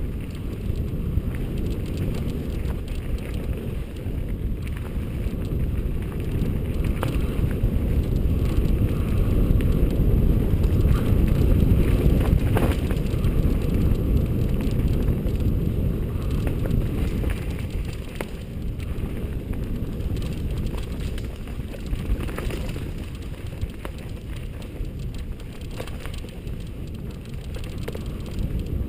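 Mountain bike riding over dirt singletrack: a continuous low rumble of wind on the microphone and tyres rolling over dirt and leaves, with a few clicks and rattles from the bike. It is loudest in the middle, where the ride runs fastest.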